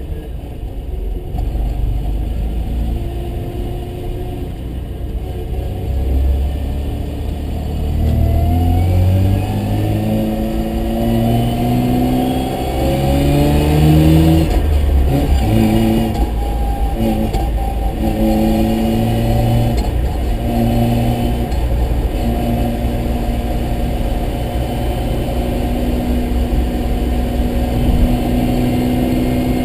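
Mazda RX-7's rotary engine accelerating through the gears. The pitch climbs and drops back several times as it shifts, then holds steady in the last third.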